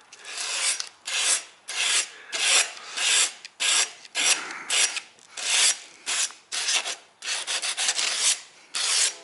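Sandpaper worked by hand over the blade of a beryllium RC boat propeller in quick back-and-forth strokes, about two a second, with a wet cutting fluid on the blade.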